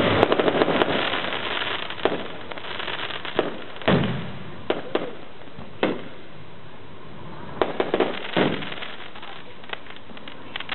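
Aerial fireworks going off: a dense run of crackling pops for the first two seconds, then separate sharp bangs about a second apart, a few in quick pairs.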